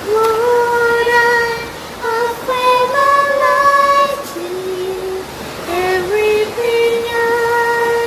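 A high female voice singing a slow worship melody in long held notes, phrase after phrase with short breaths between, over a steady background hiss.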